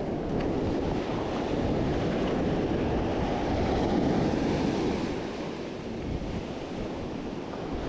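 Ocean surf breaking and washing up the beach, with wind buffeting the microphone; the wash swells louder about four seconds in.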